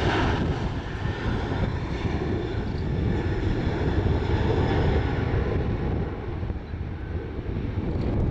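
Boeing 737-800 jet engines at takeoff power, a steady low rumble as the airliner climbs away, with the higher hiss thinning out about half a second in.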